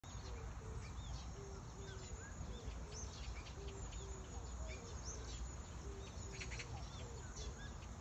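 Cuckoo calling over and over, short low hooting notes that come mostly in pairs. Smaller birds chirp quickly and high above it, over a steady low rumble.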